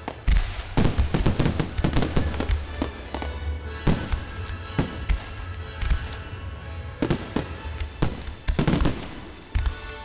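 Fireworks display: aerial shells bursting in rapid volleys of sharp bangs over a continuous low rumble, with music playing underneath.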